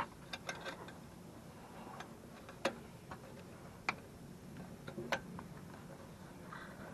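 Scattered light clicks and taps, about eight to ten spread unevenly over several seconds, from hands and tools handling parts while fitting the piping, over a faint steady background.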